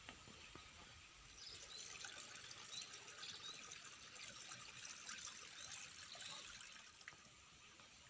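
Faint trickling of shallow water in a flooded rice paddy, with small high chirps over it.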